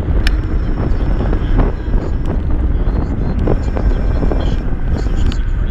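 Wind rumbling hard on the camera microphone of a rider on a Kaabo Mantis Pro electric scooter, with scattered short knocks and rattles throughout.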